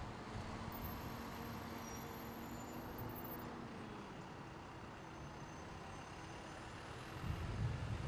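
City street traffic: a steady wash of road noise with vehicle engines. Wind buffets the microphone with low rumbling gusts from about seven seconds in.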